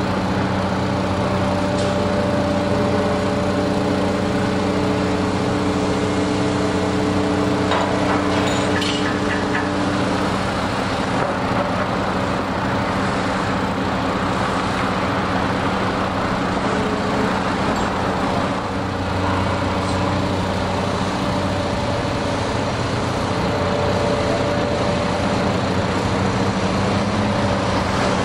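Heavy diesel engine of construction machinery running steadily, its pitch shifting slightly now and then, with a few faint clinks.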